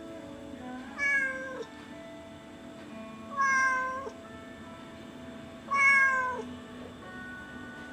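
A cat meowing three times, each meow drawn out for over half a second and falling in pitch at the end: pleading meows of a cat begging to be let into the house.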